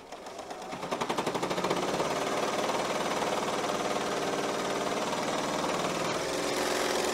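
Bernina L890 overlocker sewing a serged seam through four layers of faux suede, picking up speed over about the first second and then stitching at a steady fast rate.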